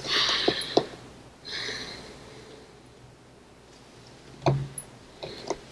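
Quiet pause picked up close on a headset microphone: soft breathy rustling during the first two seconds, a few small clicks, and a short knock about four and a half seconds in.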